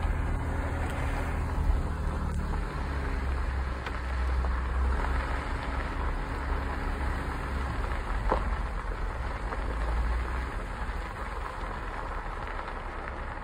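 Jeep Wrangler running as it drives over a rough dirt and gravel trail, with the engine's low drone under a steady crunch and rattle of tyres on stones. A single sharp knock about eight seconds in.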